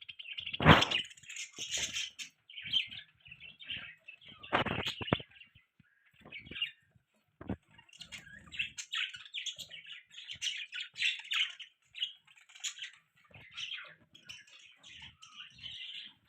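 Pet budgerigars chirping in a busy, continuous chatter. There is a sharp knock about a second in and a short run of knocks at about five seconds.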